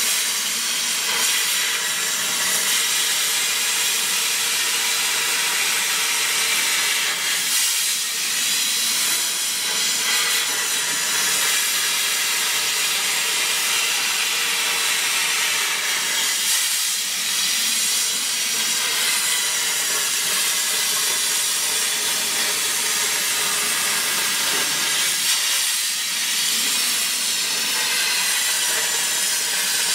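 CNC plasma cutting torch cutting a square metal tube: a steady hiss of the plasma arc and its gas jet.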